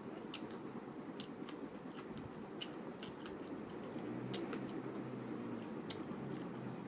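Close-up eating sounds: someone chewing a mouthful of bibimbap, with small irregular clicks scattered through.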